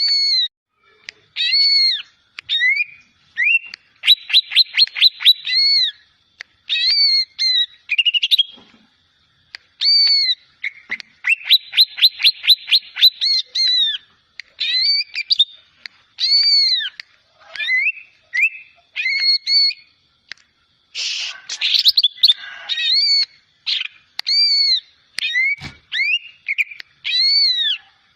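A young cucak ijo (green leafbird, Chloropsis) singing, still learning its song: a busy string of short arched whistled notes, broken twice by a fast rattling trill. There is a harsh scratchy burst about 21 seconds in and a single low thump a few seconds later.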